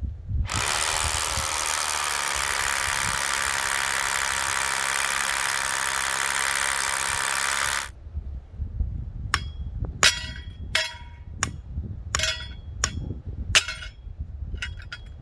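A corded power drill runs steadily for about seven seconds, then stops abruptly. It is followed by a string of sharp hammer blows on a steel post anchor, each blow ringing like metal.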